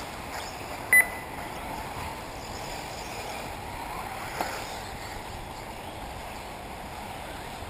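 1/8-scale electric RC off-road buggies running on a dirt-and-tarp track, heard as a steady hiss of motors and tyres. A short, loud electronic beep about a second in is the loudest sound, and a light knock comes near the middle.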